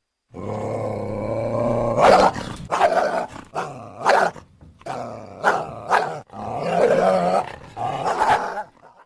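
Wolf growling: a steady low growl starts just under half a second in, then from about two seconds a series of short, loud snarls.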